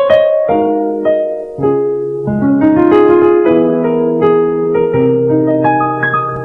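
Instrumental piano music: a melody played over held chords, with no singing.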